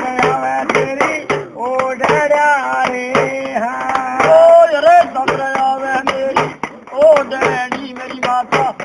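A man's voice singing long, bending notes over a steady percussive beat and a sustained low drone.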